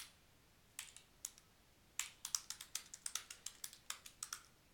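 Typing on a computer keyboard: a few separate keystrokes, then a quick run of keystrokes from about two seconds in.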